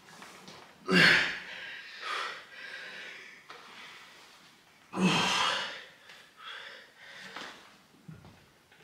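A person breathing hard, with two loud, sharp exhales about a second in and about five seconds in, and quieter breaths between.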